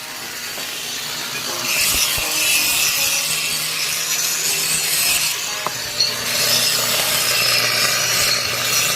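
Power tool grinding on the steel of a loader bucket in two long passes, with a short break about five seconds in, over a faint steady hum.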